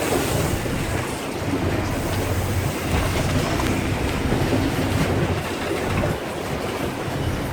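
Fishing boat's engine running steadily at low speed, with water and wind noise over it.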